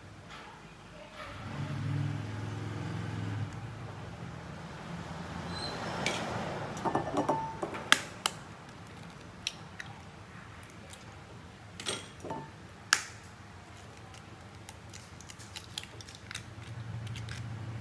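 Eggshells being tapped and cracked against the rim of a ceramic bowl while eggs are separated: a string of sharp, separate taps and cracks. A low hum is heard under it for a few seconds at the start and again near the end.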